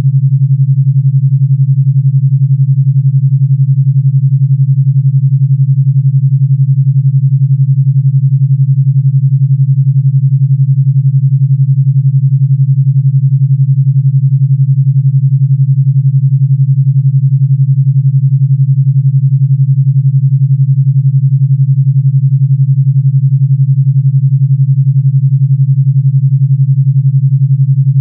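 Synthesized 141 Hz pure tone carrying an 11 Hz alpha-wave beat: a steady low tone with a fast, even throb. It does not change throughout.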